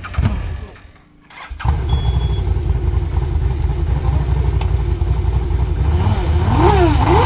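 Rally side-by-side buggy's engine running with a fast, pulsing idle, then revved several times near the end, its pitch rising and falling. It has just been got going after refusing to start, which the crew puts down to a flooded engine.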